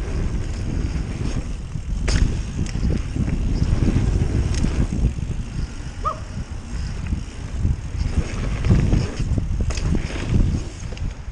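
Wind rushing over the microphone and the rattle of a mountain bike descending a dirt trail, with a few sharp clicks and a brief squeak about six seconds in.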